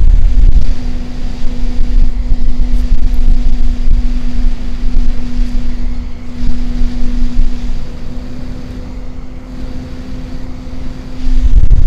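EK-Vardar F4-120ER 120 mm double-ball-bearing PC fan running at full speed (2200 rpm) held close to a microphone: a steady hum over rushing air, with its airflow buffeting the microphone as a low rumble. The sound drops for a few seconds near the end, then the rumble comes back.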